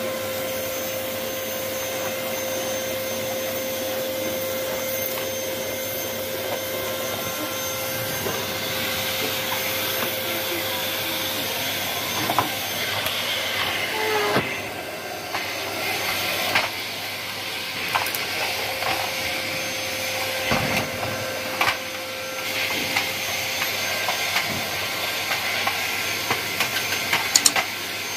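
Canister vacuum cleaner running steadily with a motor whine, its floor brush pushed over a shag rug and then across a tiled floor. From about halfway through there are scattered clicks and knocks.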